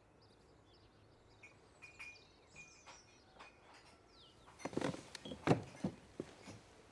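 Quiet room ambience with a few faint bird chirps, then a quick run of footsteps and knocks starting a little past halfway.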